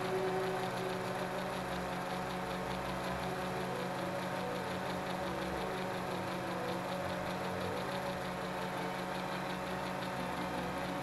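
XK X380 quadcopter's four motors and propellers in flight, picked up by its own onboard camera: a steady hum of several tones that holds level throughout.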